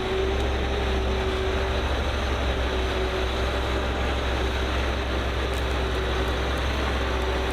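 Heavy machinery running steadily: an even engine noise with a low hum and a faint held tone that breaks off briefly a couple of times.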